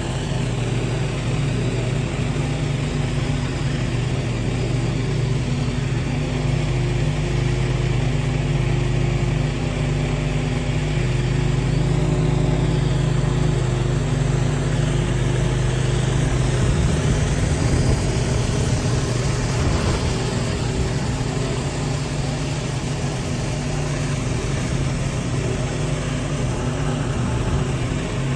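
Gas-engine pressure washer running steadily under a continuous hiss of high-pressure water spray.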